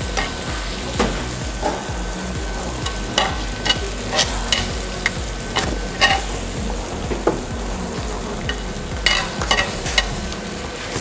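Metal tongs scraping and clicking on a hot cast-iron grill pan as sautéed vegetables are picked up, over a steady light sizzle of the frying food. There are many short sharp clicks, with a quick cluster of them near the end.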